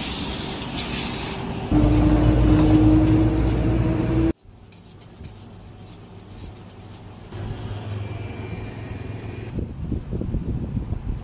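An electric motor blowing air: a steady whine with hiss that grows louder about two seconds in and cuts off abruptly a little after four seconds. Then, much quieter, a kitchen knife drawn across a honing steel in a run of light scraping strokes, and near the end the soft sounds of the knife cutting into a raw rack of ribs.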